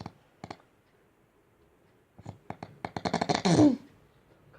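A man snoring in his sleep. A few soft clicks come near the start; then, about two seconds in, a snore builds from scattered clicks into a fast rattle and ends in a loud low tone that falls in pitch.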